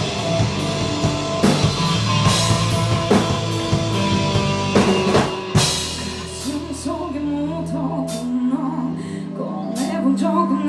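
Live rock band playing loudly: drum kit, electric guitar and bass together, with a heavy crash hit about halfway through. After it the playing thins to held bass notes and scattered cymbal hits under a singer's voice at the microphone.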